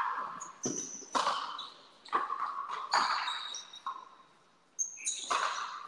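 Frontenis rally: a rubber ball cracking off strung racquets and the fronton wall. There are several sharp hits roughly a second apart, each with a ringing echo, and short high squeaks between them.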